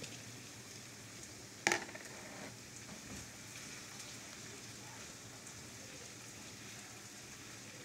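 Freshly washed rice with diced carrot and potato frying in oil in a pan, a faint steady sizzle while it is stirred with a wooden spoon. A single sharp clink about a second and a half in.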